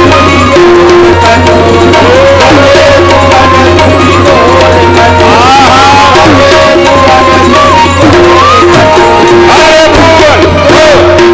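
Loud devotional music led by tabla drumming, with held melodic notes and sliding tones over it.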